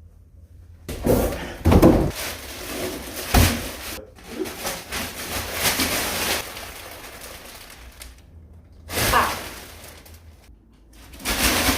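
Packaging being handled as a boxed mattress is unpacked: noisy rustling and scraping in long bursts, with a few heavy thumps about two and three and a half seconds in.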